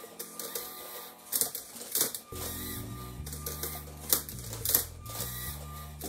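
LEGO SPIKE Prime motors and gearing of a Rubik's cube-solving robot at work, with plastic clacks as it flips the cube and turns its layers. Background music plays with it, and a bass line comes in about two seconds in.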